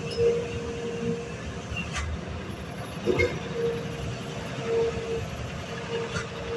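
Loaded truck's diesel engine labouring slowly up a steep, narrow climb, with a deep rumble and a steady whining tone that drops out and comes back several times.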